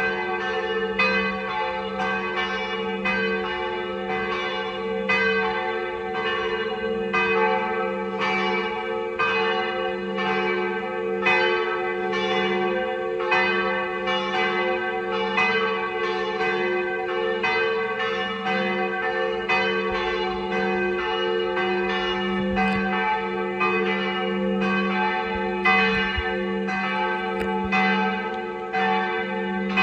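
Church bells of Zadar's Cathedral of St. Anastasia and the nearby St. Donatus church ringing the noon peal together, the two sets of bells overlapping. Strokes come about twice a second over steady low tones from bells that ring on without a break.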